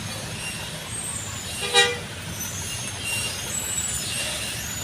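Steady road-traffic rumble with one short vehicle horn toot about two seconds in.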